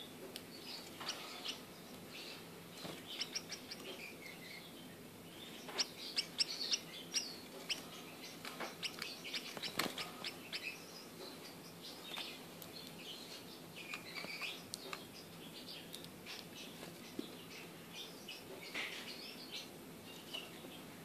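Gouldian finches calling: many short, high chirps and peeps scattered throughout, with a few sharp clicks near the middle.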